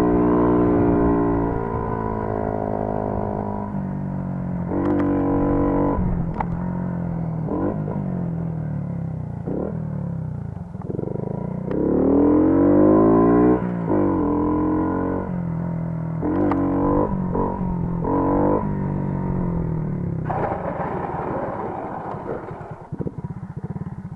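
Moped engine running under a rider, revving up and down so its pitch rises and falls, with a strong rev rising and dropping again about halfway through and a few short knocks.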